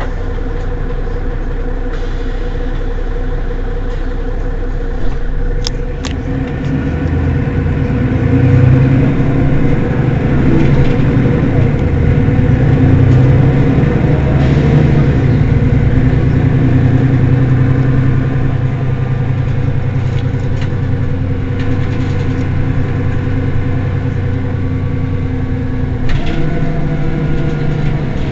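A Mercedes-Benz Citaro city bus's diesel engine idling while the bus stands still. Its steady note grows louder and a little busier about eight seconds in, then settles back down about two-thirds of the way through.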